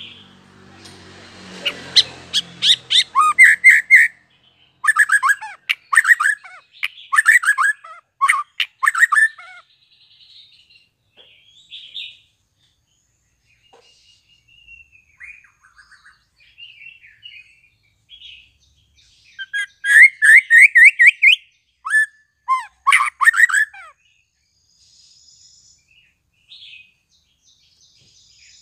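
White-rumped shama, a young bird just out of its spotted juvenile plumage, singing in loud bursts of rapid, sharp repeated notes, with quieter scattered twittering in between.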